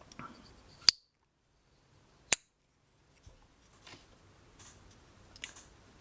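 Two sharp metallic snaps about a second and a half apart from a TwoSun TS90 slip joint pocket knife, its M390 blade snapping into position under the backspring, with faint handling clicks afterwards.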